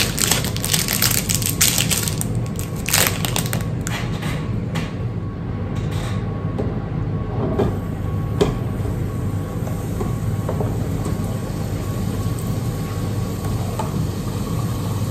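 Hot oil in a deep fat fryer sizzling and crackling as battered food fries. The crackling is densest in the first few seconds, then settles into a steady hiss.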